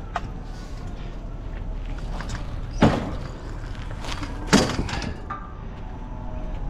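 Two loud bangs about a second and a half apart as a piece of scrap metal is loaded onto a pickup truck, over a low steady rumble.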